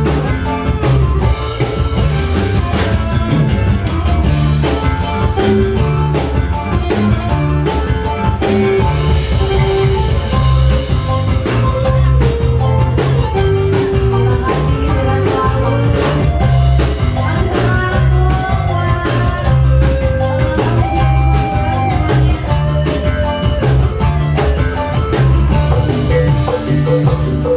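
Live dangdut band music with a steady drum beat and a strong bass line.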